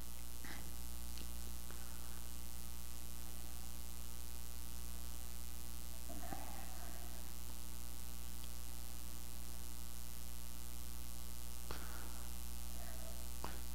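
Steady electrical mains hum with a faint hiss underneath, with a couple of faint brief clicks.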